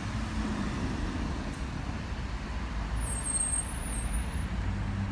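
Street traffic: a steady low rumble of motor vehicles on the road, with a brief high-pitched squeal about three seconds in.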